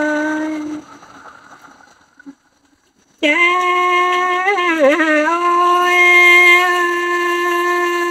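A woman's solo voice singing a Đang Mường folk song, drawing out long held vowels without words. One note fades out just under a second in, and after a pause of about two seconds a new note starts. That note dips and wavers once, then is held steady.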